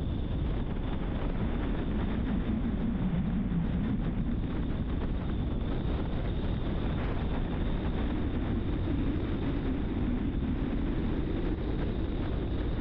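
A car driving at speed on a dual carriageway: steady tyre and road noise with wind rush, heaviest in the low end.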